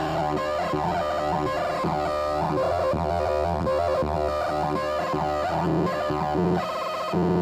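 DIY Arduino Nano drone synthesizer playing a distorted, buzzing drone of layered held tones that shift and warble, growing louder near the end.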